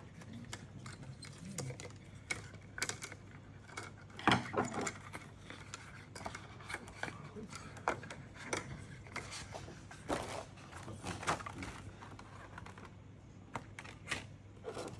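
Irregular clicks, taps and light knocks of an LCD panel being taken apart by hand, its thin frame and layers lifting and knocking against each other. The loudest knocks come about four seconds in and again around ten and eleven seconds in.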